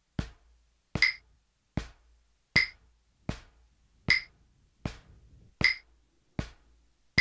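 Wooden drumsticks striking a rubber practice pad in even alternating single strokes, two per beat at a slow 38 beats a minute, a little under a second apart. A metronome click sounds with every other stroke.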